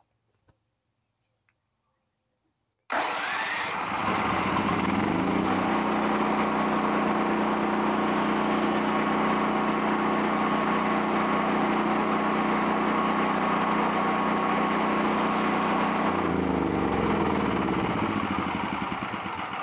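Westinghouse WGen7500DF generator's single-cylinder engine started by its remote key fob: it fires up suddenly about three seconds in, settles to a steady run, then winds down near the end as it is shut off.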